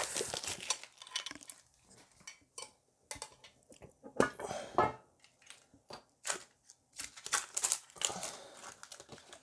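Shrink-wrap being cut and peeled off a metal Pokémon mini tin, with crinkling plastic and irregular light metallic clinks and clicks as the tin is handled, opened and its foil booster packs taken out.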